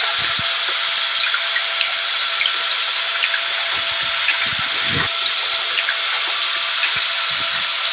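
A vacuum cleaner runs steadily with a constant whine, mixed with the hiss of rain and a scattering of small drop ticks. A brief low rumble comes about five seconds in.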